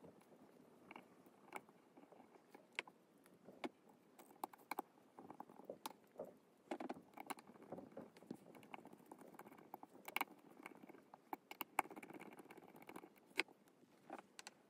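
Faint, irregular small clicks and taps of a brass coin capsule being assembled by hand: the brass ring set over the coin and tiny screws turned in with a precision screwdriver, metal touching metal.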